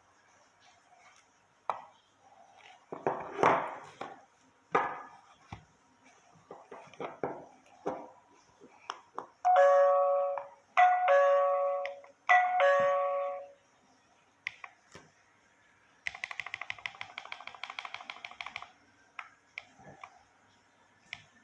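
OWSOO wireless doorbell chiming three times in quick succession, each chime a short bell-like tune that rings and fades, followed by a fast buzzing rattle lasting about two and a half seconds. Clicks and knocks come before the chimes.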